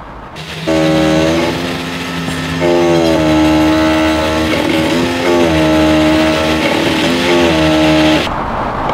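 Electric ABS hydraulic pump motor of a Jaguar XF whining while it runs the brake bleed routine. Its pitch shifts up and down in steps. It starts abruptly just after the beginning and cuts off suddenly near the end.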